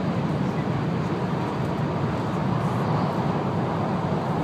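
Steady low rumble and rush of an N700 series Shinkansen running at speed, heard inside the passenger car.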